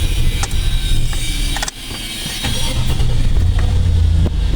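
2001 Chevrolet Silverado pickup engine running steadily, its rumble dipping briefly just under two seconds in and then building back. The truck is starting and running normally again now that a shorted wire, which had been blowing the computer's fuse, has been repaired.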